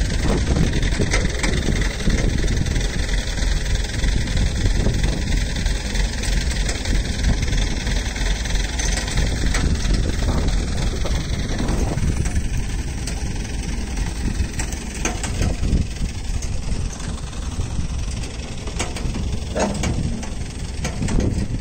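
Mobile crane's diesel engine running steadily while the crane holds a stripped tractor body aloft, easing slightly after about twelve seconds.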